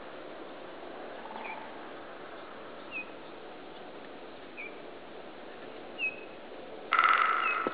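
Great spotted woodpecker drumming: one fast roll of knocks on resonant wood, just under a second long near the end, starting loud and fading, a drum given to attract a mate. Five short, high whistled bird calls repeat about every second and a half over a steady background hiss.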